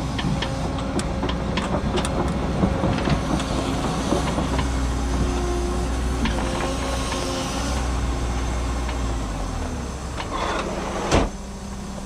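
Cat 314E excavator's diesel engine running under hydraulic load while its ripper tooth scrapes and cracks hard blue stone, with frequent sharp clanks and knocks. A loud crack comes near the end, after which the sound is quieter.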